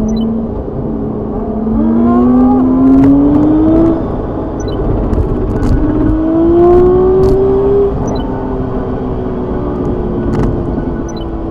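Car engine heard from inside the cabin, revving up under acceleration twice. The pitch climbs, drops about four seconds in as it shifts gear, climbs again, and then eases off and slowly falls. A few faint clicks sound over it.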